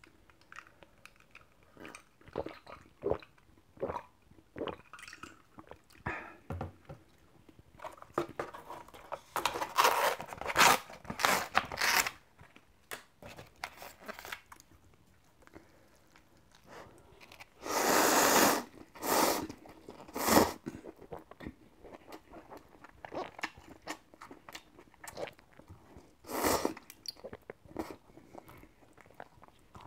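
Close-up eating and handling sounds from a cup-noodle meal: a paper lid peeled off a cup of instant noodles, chopsticks clicking against the foam cup, and crunchy bites and chewing. A few loud rustling bursts stand out, the longest lasting about a second.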